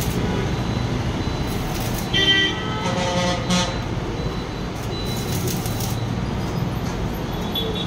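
Steady road traffic noise with a vehicle horn tooting twice, briefly about two seconds in and again a second later, mixed with the crackle of stick arc welding on stainless steel tubing.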